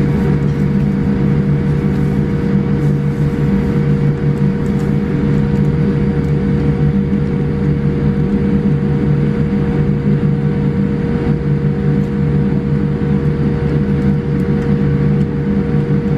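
Steady drone inside the cabin of a Boeing 787-8 airliner taxiing slowly, heard from a window seat over the wing: the jet's engines at idle along with a constant hum from the aircraft's systems.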